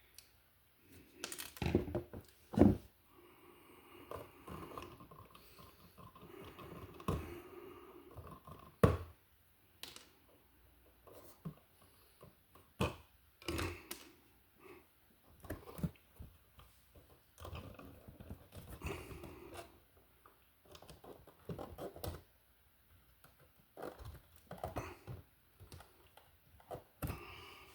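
Electrical wires and hand tools being handled, with scattered sharp clicks and knocks and stretches of scraping and rubbing as conductors are worked for splicing.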